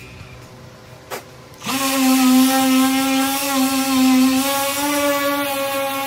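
A handheld power tool's motor starts about a second and a half in and runs steadily with a high whine, its pitch stepping up slightly a little past halfway. One click comes just before it starts.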